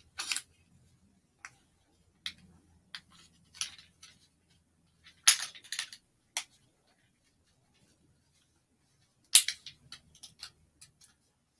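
Hard parts of a studio easel clicking and knocking as they are worked by hand during assembly. There are sharp snaps just after the start, about five seconds in and about nine seconds in, with lighter ticks between.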